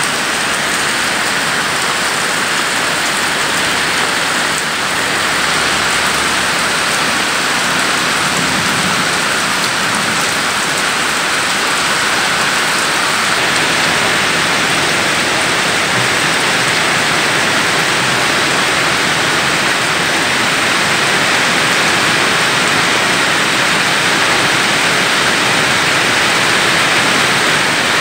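Heavy rain falling steadily on wet ground and puddles, a dense, even hiss of drops.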